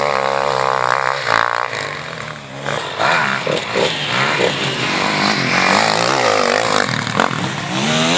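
Motocross bike engines revving hard, their pitch climbing and dropping again and again with the throttle and the gear changes, over a steady hiss.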